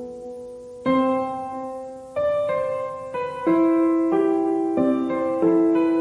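Background music: slow solo piano, chords struck about every second or so and left to ring and fade.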